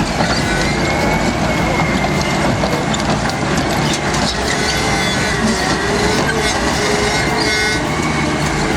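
Crawler bulldozer working, its engine running under a continuous metallic clatter of the tracks, with a steady high squeal that wavers slightly in pitch.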